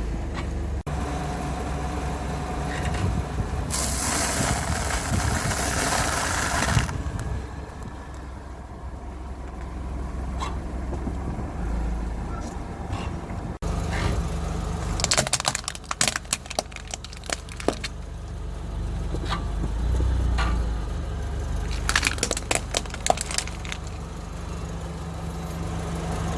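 Car engine running low and steady while its tyres roll over and crush crunchy objects. A loud rushing noise lasts about three seconds near the start, and clusters of sharp crackling and popping come in the second half.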